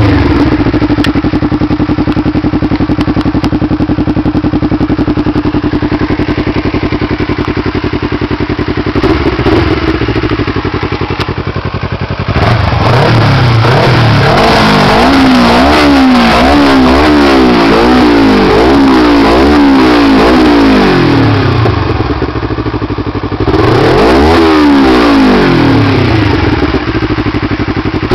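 Kawasaki Ninja 250R's parallel-twin four-stroke engine through a full Tyga exhaust system. It idles steadily for about nine seconds, with one short blip, then is revved over and over in quick throttle blips that rise and fall in pitch about once a second. The revving pauses briefly a few seconds before the end.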